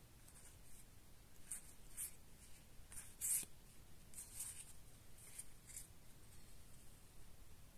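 Soft, short swishes of Magic: The Gathering trading cards sliding over one another as a hand-held stack is thumbed through card by card, the loudest a little over three seconds in.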